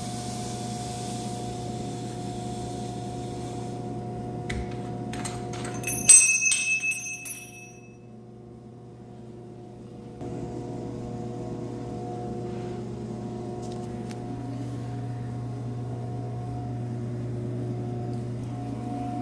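A steady low hum, broken by several clicks and a sharp, ringing metallic clink about six seconds in. The hum drops away for a few seconds after the clink, then returns.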